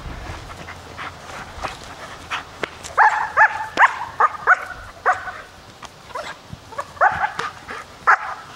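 Young German shepherd barking in rapid runs, starting about three seconds in, pausing briefly and then barking again near the end. The dog is barking at a decoy holding a bite sleeve during protection work.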